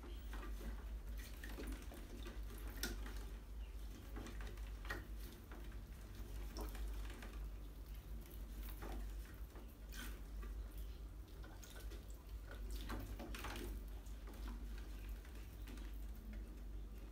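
Rats splashing in the water of glass-jar traps, with irregular faint clicks and scratches of claws on glass and tile.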